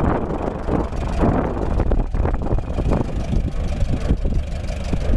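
1952 Massey-Harris 33 tractor's four-cylinder engine running steadily as the tractor is driven slowly, with a rapid, even exhaust beat.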